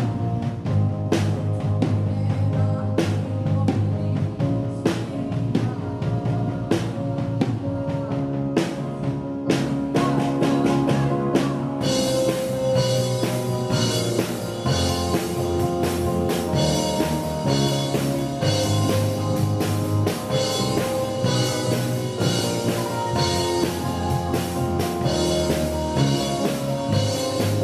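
Live rock band playing: drum kit, bass guitar and keyboards, with a singer. For about the first twelve seconds the drums give sparse, evenly spaced hits; then the full beat with steady cymbals comes in.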